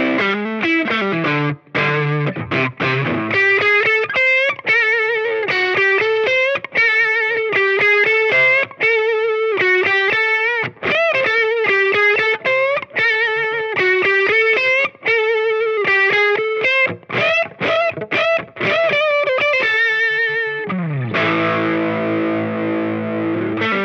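Fender Telecaster played through an EarthQuaker Devices Crimson Drive germanium overdrive into a small Fender Champ amp, giving a warm, overdriven lead tone. A few chords open, then single-note lines with finger vibrato, and near the end a chord is left ringing.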